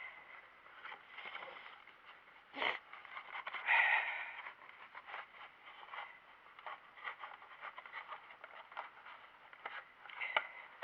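Cardboard box and plastic packaging being handled and torn open: crinkling and rustling with many small clicks, a sharp snap about two and a half seconds in and a louder rustle just after.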